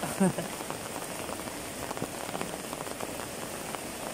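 Steady rain falling on floodwater and leaves, with a constant haze of small drop ticks. A single short, loud pitched sound, like a brief voice, comes about a quarter second in.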